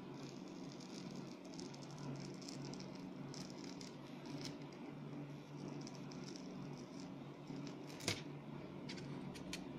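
A cracked LCD panel is pried loose from a MacBook Air lid with a thin metal tool, giving faint fine crackling and scraping. There is one sharp click about eight seconds in and a few lighter ticks near the end, over a steady low hum.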